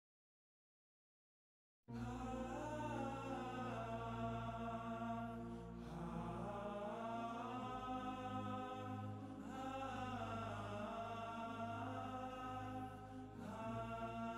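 Silence for about two seconds, then soft background music: a sustained drone under slowly gliding melody lines that come in phrases of about three to four seconds.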